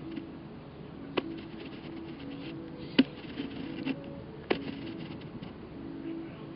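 A newborn baby hiccuping: three short, sharp hics about a second and a half apart, the middle one loudest.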